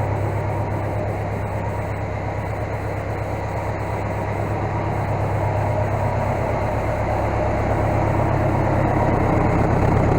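Case skid steer's engine running steadily, getting a little louder toward the end.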